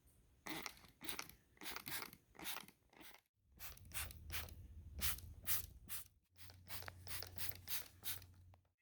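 Short, irregular scraping strokes of paint being applied to the truck's hood, about two a second, with a low steady hum underneath from about three and a half seconds in.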